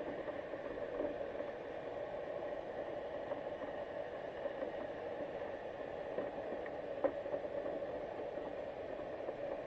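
Steady muffled underwater noise heard through a GoPro's waterproof housing, with a few faint clicks and one sharper click about seven seconds in.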